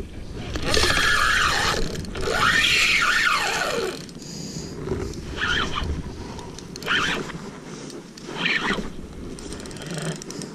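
Penn Slammer III 3500 spinning reel's drag buzzing as a hooked blacktip shark pulls line against it. There are two long runs in the first four seconds, with the pitch sliding up and down, then three short bursts about a second and a half apart.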